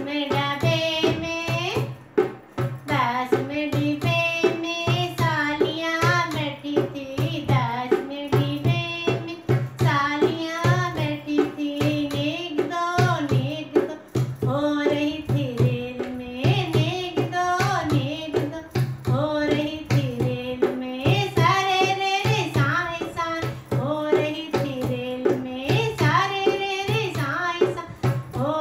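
A woman singing a Hindi wedding folk song (banna-banni geet) while beating a steady rhythm on a dholak.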